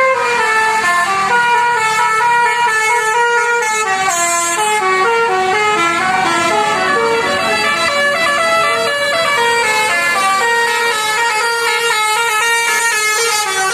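Telolet basuri bus horn playing a melody: a continuous run of quick stepped notes.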